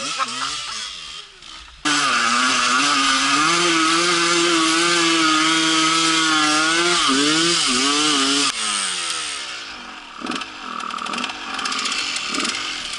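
A Husqvarna dirt bike's engine comes in suddenly about two seconds in, loud and high-revving at full throttle up a steep sand hill, its pitch held steady and then wavering. About eight and a half seconds in the revs drop sharply as the bike goes over, and the engine keeps running roughly and more quietly among a few knocks.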